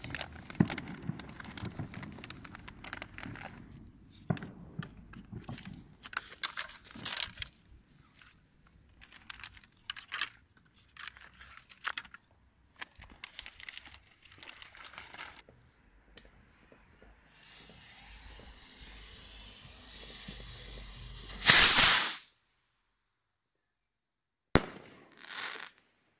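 Fireworks: scattered pops and crackles through the first half. Later a hiss builds into a loud burst about 21 seconds in that cuts off abruptly, followed near the end by a sharp crack and a short whoosh.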